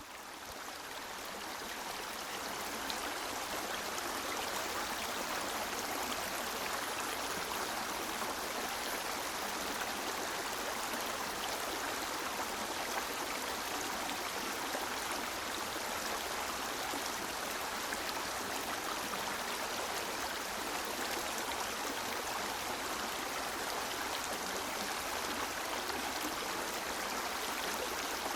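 River water rushing and flowing steadily, fading in over the first few seconds.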